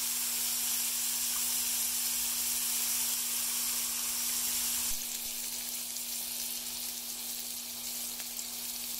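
Beef burger patties and onions sizzling in their fat on a stainless steel electric flat-top griddle: a steady frying hiss that drops a little in level about five seconds in.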